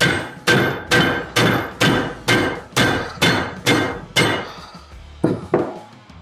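Hammer blows on a screwdriver held in locking pliers and used as a punch, driving a seized 70-year-old wedge pin out of a 1955 Buick kingpin and spindle. Ten steady strikes, about two a second, each with a short metallic ring, are followed by two quicker blows near the end.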